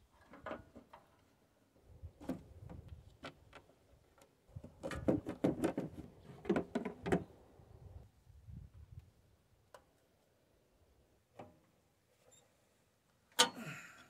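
Wrench and metal hydraulic hose fittings clicking and clanking as the hoses are worked loose at a backhoe's control valve. The knocks are scattered, with a busier run of clatter in the middle and one sharp clank near the end.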